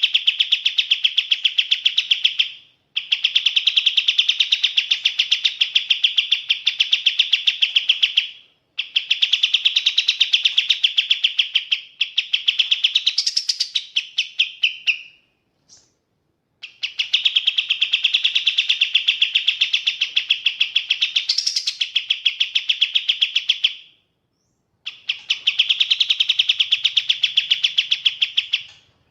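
A kapas tembak bird singing in long runs of rapid, evenly repeated chattering notes. Each run lasts several seconds and is followed by a short pause. A few higher, upswept notes cut in now and then.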